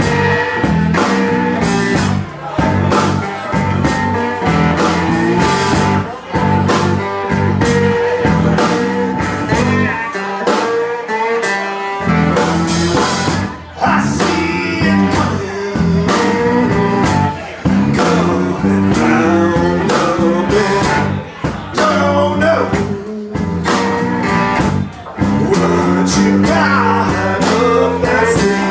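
A live blues-rock band plays: strummed resonator guitar, bass guitar and drum kit, with a man singing lead.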